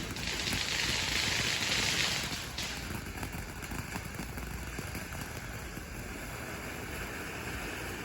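Consumer ground firework going off: a sharp pop, then a loud hiss of spraying sparks for about two and a half seconds that cuts off, leaving only faint outdoor background.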